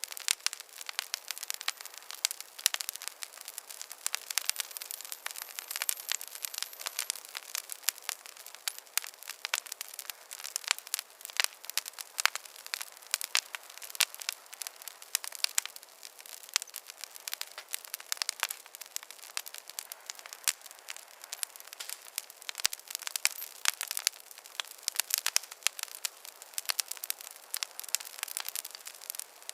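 Wood fire crackling in a fireplace: many sharp, irregular pops and snaps over a soft hiss.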